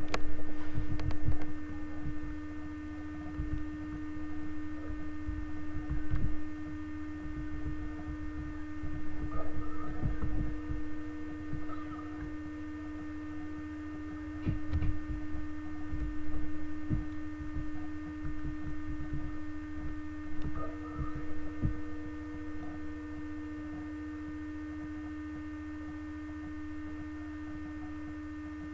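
A steady electrical hum with irregular dull low thumps over it. The thumps stop about two-thirds of the way through, leaving only the hum.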